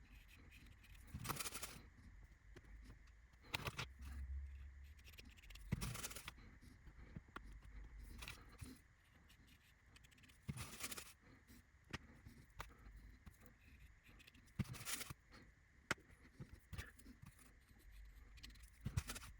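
Faint, brief scrapes every few seconds, with a few light clicks, from small laser-cut wooden window frames being glued and pressed onto a plastic glazing sheet on a workbench.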